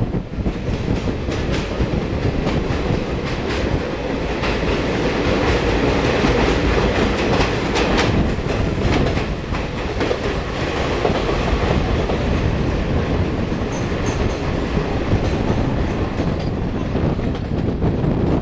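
Passenger train running through a tunnel, its wheels clattering over the rail joints in a dense, enclosed rumble. Near the end the sound opens out as the train leaves the tunnel.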